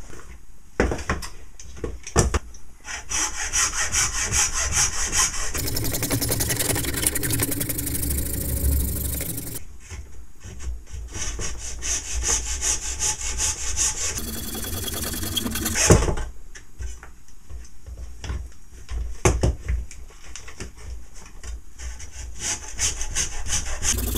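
Hacksaw cutting through the plastic handle of a cordless drill in steady back-and-forth strokes, with a single louder knock about sixteen seconds in.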